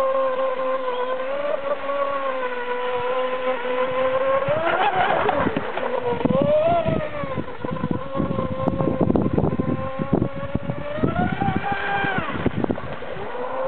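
Aquacraft SuperVee RC boat's brushless electric motor and propeller whining at speed, the pitch swelling and falling several times with the throttle. A rough rushing noise runs through the middle.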